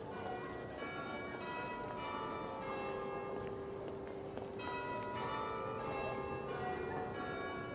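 Several church bells rung one after another, their strikes coming in quick succession and the ringing tones overlapping.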